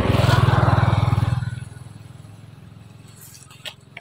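An engine running loudly with a low, fast-pulsing rumble, dying away about a second and a half in, like a motor vehicle passing. A couple of faint clicks follow near the end.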